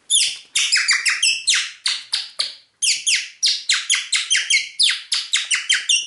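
Homemade onion-stalk membrane whistle sucked through the mouth, giving a quick run of short, high-pitched bird-like chirps, about five a second, with a brief break about two and a half seconds in.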